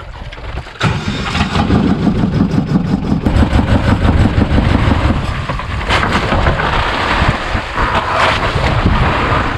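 Outrigger fishing boat's engine running loudly with a heavy rumble, coming in abruptly about a second in as the boat gets under way.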